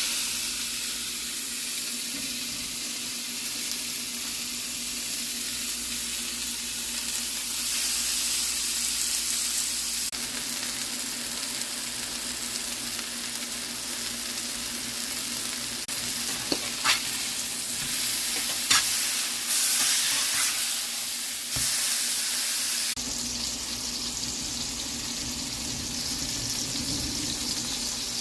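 Burger patties sizzling steadily as they fry, with a few sharp clicks partway through.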